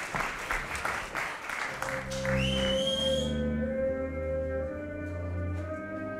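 Audience applause dying away in the first few seconds as recorded stage music starts, with long held low notes and a sustained higher tone.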